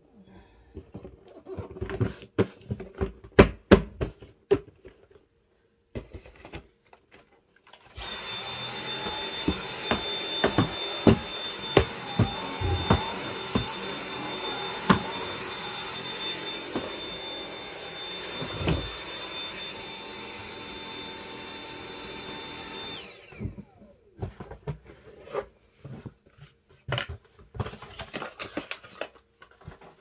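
Cordless stick vacuum switched on about eight seconds in, its motor running with a steady high whine and scattered ticks and knocks as it works the carpet, then cut off abruptly a few seconds before the end, winding down briefly. Irregular knocks and clicks come before and after it.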